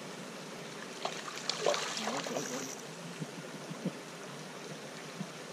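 Water splashing as a hooked trout thrashes at the surface by a landing net, with a few sharper splashes between one and three seconds in, over a steady background hiss.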